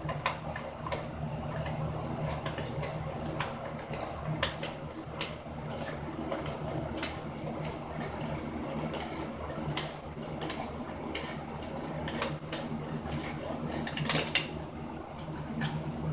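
Scattered metal clinks and clicks of hand tools being handled, over a steady low hum.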